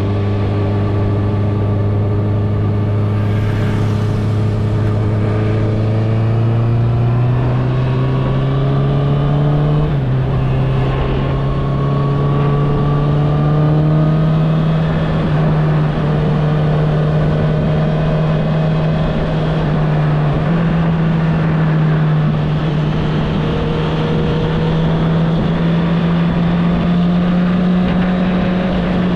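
Honda CBR650R's inline-four engine with an Akrapovic exhaust pulling steadily under way, its pitch climbing slowly as the bike gains speed. The pitch dips briefly about ten seconds in, then keeps rising, with a few small dips later on.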